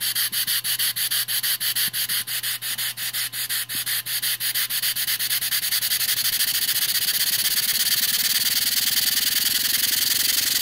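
Stuart 10V single-cylinder model steam engine running, its exhaust beating in quick, even puffs. The engine speeds up until, about six seconds in, the beats blur into a steady rush.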